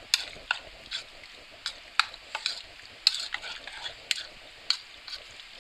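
Raw chicken cubes being mixed by hand through a yogurt and spice marinade in a bowl: wet squelches and sharp clicks, unevenly about two a second.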